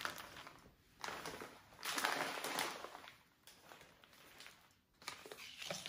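Plastic and cardboard grocery packaging rustling and crinkling as it is handled, in several separate bursts.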